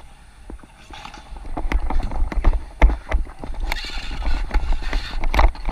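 Dek hockey play on plastic sport tiles: a rapid, irregular run of sharp clacks from the stick on the ball and the tiles and from the player's running steps, setting in about a second and a half in, over a low rumble from the helmet camera.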